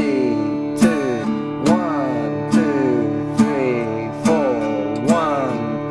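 Acoustic guitar strummed in a steady rhythm, with a strong accented strum a little under once a second and the chord ringing between strokes.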